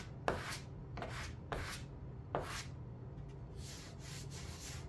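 Spot putty being scraped across a sanded Bondo surface with a spreader: about five short scraping strokes in the first two and a half seconds, then softer steady rubbing, as pinholes in the filler are filled.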